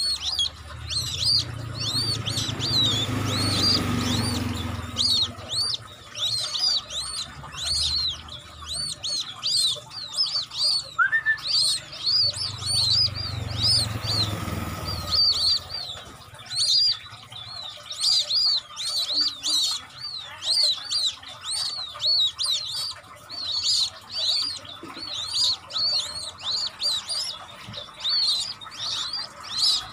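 Newly hatched white-breasted waterhen chicks peeping without pause, high arched cheeps about two a second. A low rumble of passing road traffic rises under them twice, in the first few seconds and again around twelve to fifteen seconds in.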